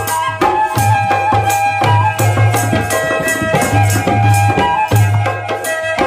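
Background music: a steady percussion beat over held melodic notes and a deep, repeating bass note.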